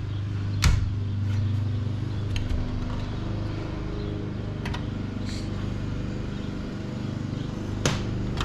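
Sharp clicks and knocks of a desktop computer being taken apart by hand, two louder ones about a second in and near the end, over a steady low hum.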